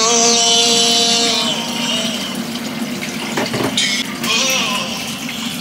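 Water running steadily from a tap into a sink, with held pitched notes of a melody over it, loudest in the first second and a half.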